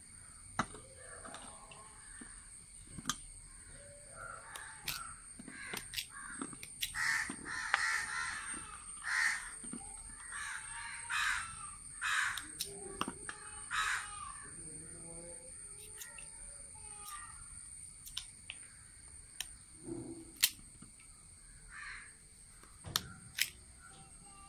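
Crows cawing repeatedly, most densely in the middle stretch, over sharp clicks of a knife chopping raw cassava.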